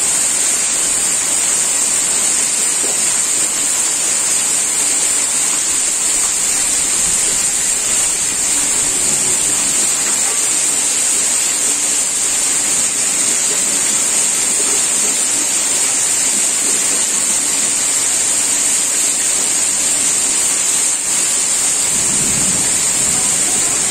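Very heavy tropical downpour: a steady, loud hiss of rain pouring down without a break.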